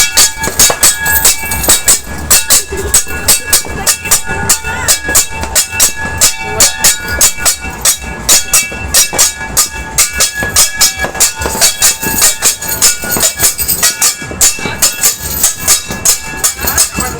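Metal being banged fast and hard for noise, several clanging strikes a second with a ringing after each, with no break.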